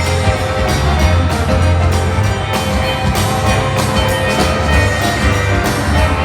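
Rock and roll band playing an instrumental break without vocals, with a steady drum beat over a heavy bass line.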